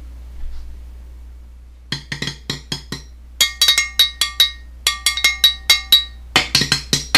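Quick runs of sharp taps on something hard that rings with clear tones, like glass or metal being struck, in about four groups of six to eight strikes each, starting about two seconds in over a steady low hum.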